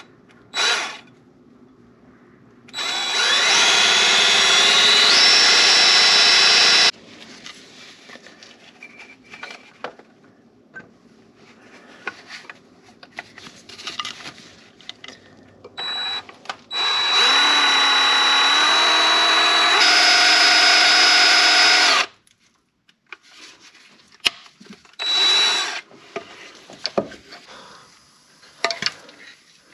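Power drill drilling out a broken exhaust manifold stud in the cylinder head. There are two long runs of about four and five seconds, the motor's whine rising in pitch as it speeds up, with a few short blips of the trigger and some scraping in between.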